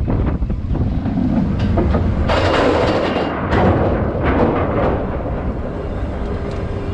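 Roller coaster train rumbling and clattering along its track, heard from a car riding it, with a surge of rushing noise a couple of seconds in.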